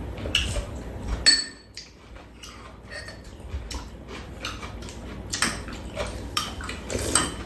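Metal spoons clinking and scraping against bowls at a meal: scattered light taps, with one sharper ringing clink a little over a second in.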